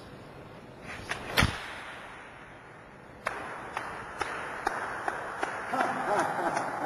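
A sword swung through the air with a sharp swish about a second and a half in. From about halfway there is a steady hiss with light clicks about twice a second.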